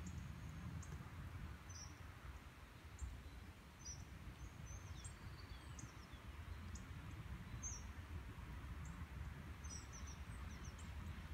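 Faint outdoor ambience: a steady low rumble with scattered short, high bird chirps throughout.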